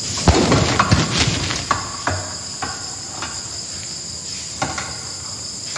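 Unwanted background noise at the start of a home vocal recording before the singing: wind buffeting the microphone in low thumps, most of them in the first two seconds, over a steady high-pitched drone, with a few sharper knocks later.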